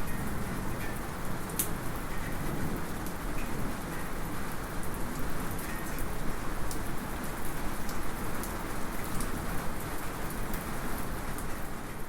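Steady light rain, with scattered sharp ticks of a small metallic drip. The tail of a distant thunder rumble dies away in the first moment.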